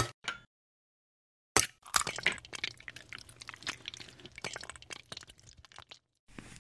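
A sharp click, then after a pause a thick, slime-like liquid pouring onto crumbs for about four seconds, full of small wet crackles and pops.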